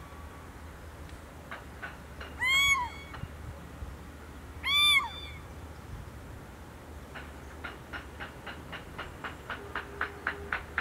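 Little owl giving two loud calls about two seconds apart, each rising then falling in pitch. From about seven seconds in, a regular run of short ticks, roughly three a second, starts and grows louder.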